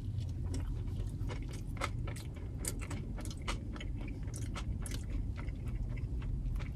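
Close-up chewing of a sub sandwich after a bite: irregular small wet mouth clicks and squishes, over a steady low hum.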